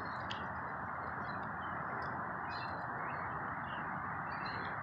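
Small birds chirping sparsely with short, high calls over a steady rushing background noise.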